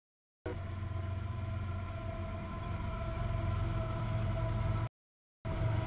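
Diesel freight locomotive and its train passing over a grade crossing: a steady low engine rumble with faint steady tones above it. The sound cuts out completely for about half a second twice, at the very start and about five seconds in.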